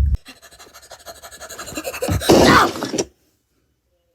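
Cartoon sound effect that grows louder over about two seconds and ends in a loud crash, then cuts off suddenly about three seconds in.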